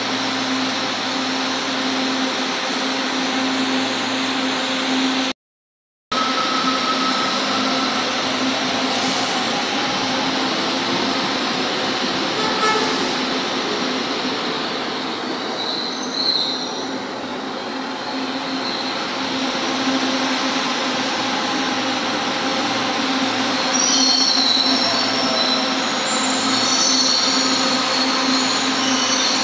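Metro train running alongside a station platform: a steady rumble with a low hum, broken by a brief cut-out about five seconds in. High wheel squeals come in briefly around the middle and again near the end as the train slows to a stop.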